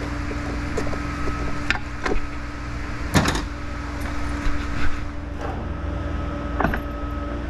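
Metal transmission parts and snap-ring pliers knocking and clinking now and then during a teardown, loudest about three seconds in, over a steady background hum.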